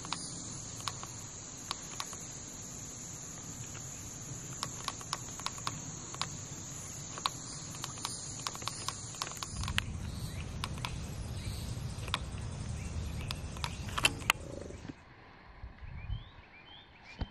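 Steady high-pitched drone of insects, with scattered sharp ticks and taps throughout. About ten seconds in the drone stops and a low rumble takes over; after about fifteen seconds it is quieter.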